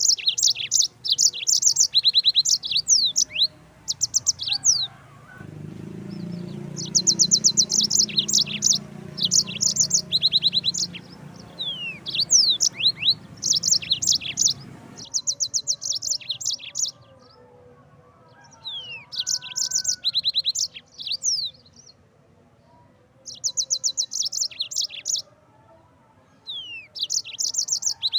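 Yellow-fronted (Mozambique) canary singing: bursts of fast, high trills and chirps in phrases a second or two long, separated by short pauses.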